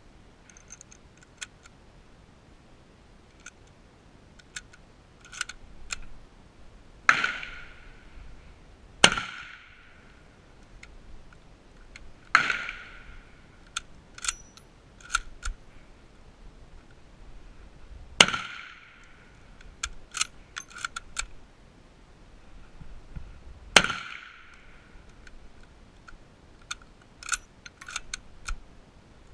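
Five rifle shots on a covered firing range, irregularly spaced, each trailing off in a short echo under the roof. Between them come many light metallic clicks and rattles of rifles being handled.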